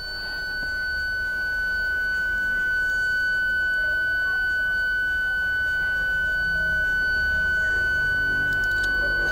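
Toyota parking sensor buzzer sounding one continuous high-pitched tone, the solid tone that signals an obstacle very close to the car.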